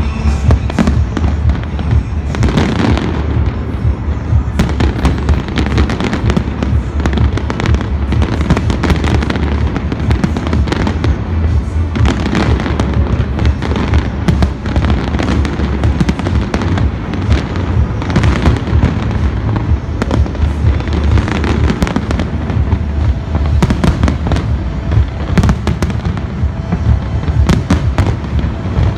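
Large fireworks display going off continuously: dense, rapid bangs and crackling shell bursts over a constant low rumble.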